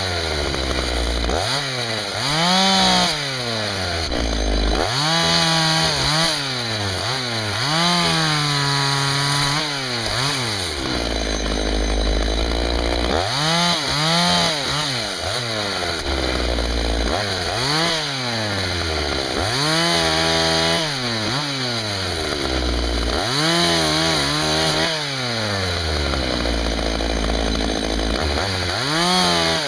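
Husqvarna 61 two-stroke chainsaw revving up and dropping back to idle again and again while cutting firewood, its engine pitch rising and sagging with each cut.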